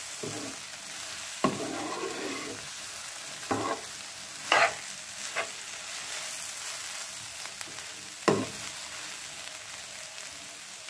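Masala-coated soya chunks frying in a nonstick pan with a steady faint sizzle while they are stirred with a spatula that scrapes and knocks against the pan about five times.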